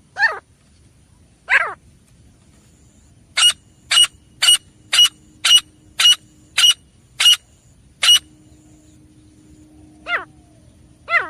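Grey francolin calling: two short falling calls, then a run of about ten sharp, clipped notes at roughly two a second, then more falling calls near the end.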